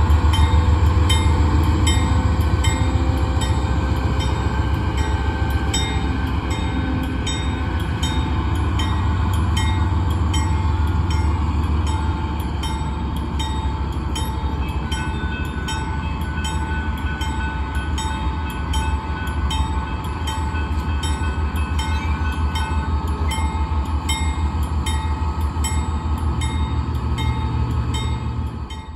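Rebuilt Union Pacific diesel-electric locomotives running on track: a steady low diesel engine rumble with a steady whine above it and a regular fast ticking.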